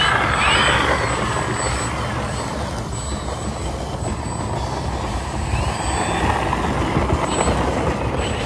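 Brushless electric motor (3536, 1000 kV) spinning an 11x6 propeller on an RC Extra 300 model plane, whining up sharply at the start as the throttle is opened for take-off, then running steadily with another rise and fall in pitch about six seconds in. A steady low rumble lies under it.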